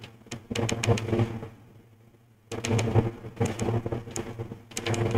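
Computer keyboard typing: quick runs of key clicks in two spells with a pause of about a second between them, over a steady low hum.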